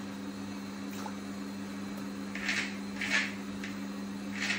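Kitchen knife slicing through raw potato onto a plastic cutting board: three short crisp cuts in the second half, over a steady low hum.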